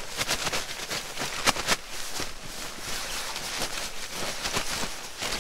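Nylon shell of a Snugpak Sleeper Expedition synthetic sleeping bag rustling and crinkling as it is pulled out of its stuff sack and spread out. The fabric is stiffened by the sub-zero cold, which makes it rustle more.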